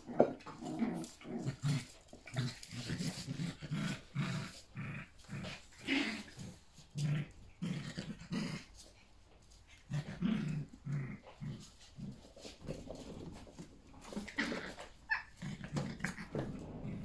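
Yorkshire terriers, a mother and her puppies, play-fighting and growling in many short bursts, with a lull of a couple of seconds around the middle.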